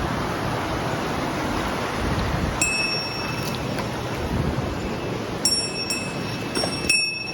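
Mountain stream water rushing steadily. Several short, high-pitched tones, each starting with a click, come in about two and a half seconds in and again near the end.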